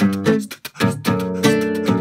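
Acoustic guitar strummed in a free improvisation, with a sharp chord attack about every half second and the chords ringing between them, accompanied by voice percussion.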